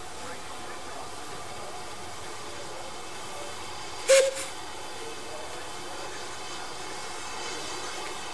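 A single short, loud burst of steam hiss from a steam engine about four seconds in, with a brief tone inside it, over steady background noise.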